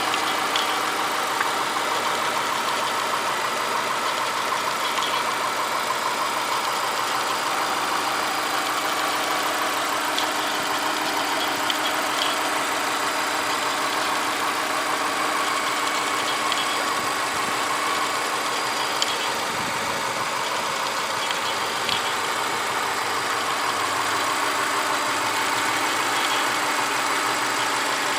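A 2006 2.5i car engine idling steadily, with a few faint ticks scattered through it. It is making a noise the owner considers weird.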